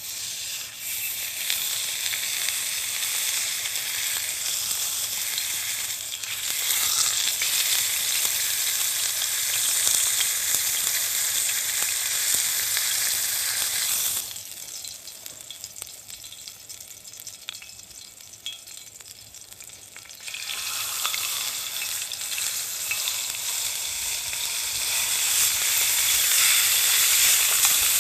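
Steak sizzling in a hot pan over a campfire, a dense frying hiss. It falls much quieter for about six seconds in the middle, then sizzles loudly again.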